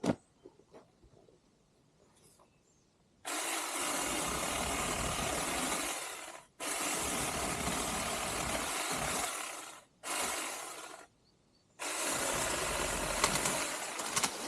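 Saker 6-inch battery-powered mini chainsaw cutting down a small tree. It runs in four bursts, about three seconds, three seconds, one second and nearly three seconds long, and each burst winds down as it stops.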